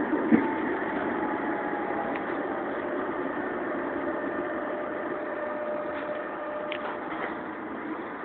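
Alsthom TFS tram running, a steady rumble with a faint whine over it, slowly getting quieter. A single sharp knock sounds just after the start.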